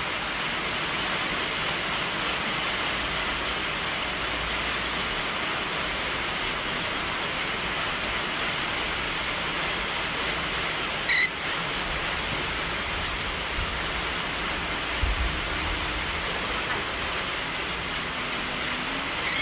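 Steady rushing noise, like running water or rain, throughout; about eleven seconds in, one brief high-pitched squeak.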